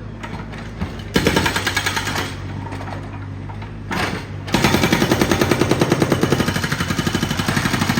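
Jackhammer-type road breaker on a construction machine hammering in rapid, evenly spaced blows, about eight a second, in a short bout about a second in and again from about halfway on, over a steady engine hum.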